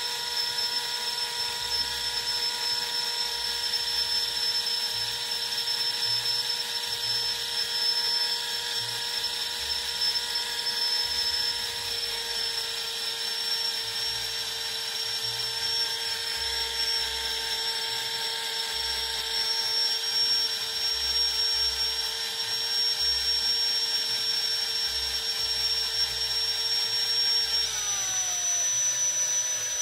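Steady whine of a small electric motor, like a drill, over a hiss. About two seconds before the end its lower tones slide down in pitch while a high tone steps up.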